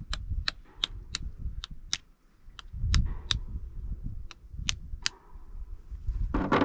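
Cooked yabby shell being cracked and pulled apart by hand: a run of sharp, irregular clicks and small cracks, about two a second, over low rumbling handling noise.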